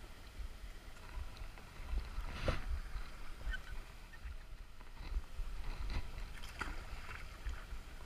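Shallow river water sloshing around someone wading, with a few brief sharp sounds about two and a half, six and six and a half seconds in, over a steady low rumble on the microphone.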